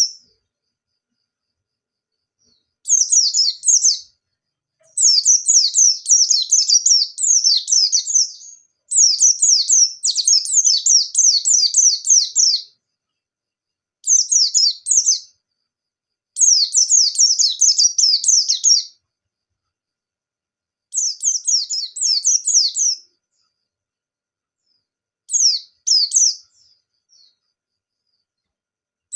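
A white-eye (pleci) in full song, the 'nembak' style that keepers prize: fast, high twittering phrases of one to four seconds each, broken by short silences about eight times.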